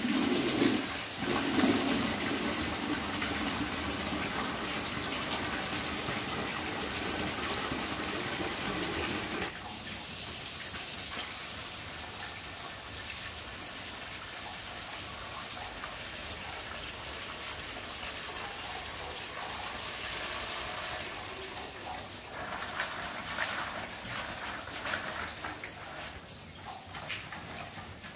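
Water gushing steadily for about ten seconds, then flowing more quietly, with a few short knocks near the end.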